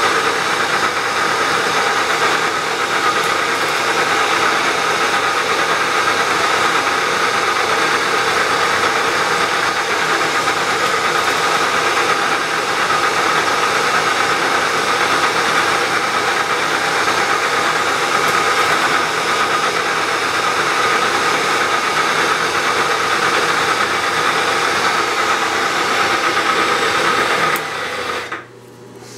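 Vertical milling machine running steadily while a center drill spot-drills and countersinks a ring of holes in the part, with a steady whine over a hiss; the running stops abruptly near the end.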